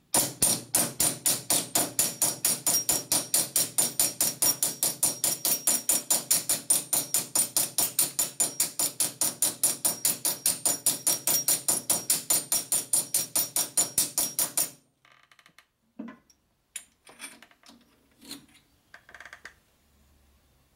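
Rapid, even metal-on-metal tapping, about five sharp strikes a second, from a hand tool working a metal part held in a lathe chuck. It stops abruptly about fifteen seconds in, and a few faint clinks follow.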